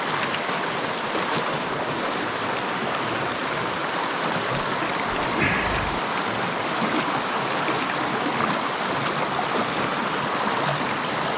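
Mountain stream water rushing steadily over rocks, an even continuous noise, with a brief low bump about halfway through.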